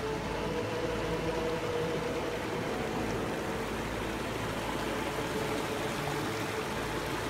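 Steady rushing of a mountain stream, an even wash of water noise.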